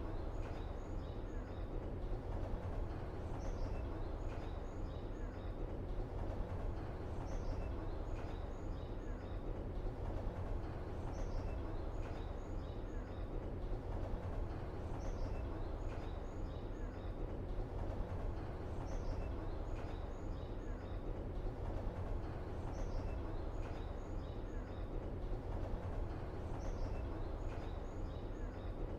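Steady ambient background: a constant low rumble with a faint hum, over which the same short bird call (one rising note followed by three or four quick chirps) repeats identically about every four seconds, like a looped ambience track.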